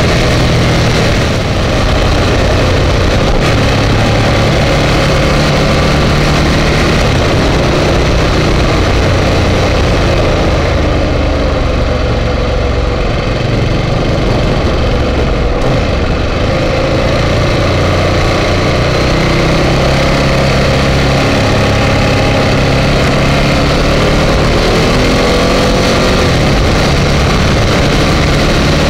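Ducati Multistrada 1200 S's L-twin engine under way on the road, its pitch rising and falling as the throttle is opened and closed through a run of curves, over a steady rush of wind and road noise.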